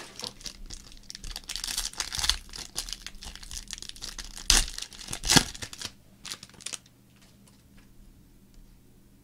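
Foil trading-card pack crinkling as it is handled and torn open by hand, with two loud rips about a second apart just past the middle. It then goes quieter, with only faint clicks.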